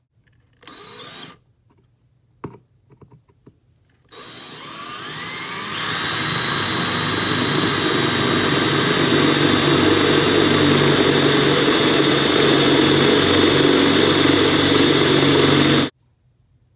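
Power drill with a cone-shaped bit boring through a steel knife tang. After a short noise and a few clicks, the drill speeds up over a couple of seconds and then runs loud and steady as the bit cuts into the steel, stopping abruptly near the end.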